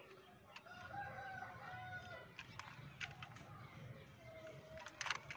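A faint, distant drawn-out bird call about a second in, lasting about a second, with a shorter call later on. A few light plastic clicks come from the toy car being handled.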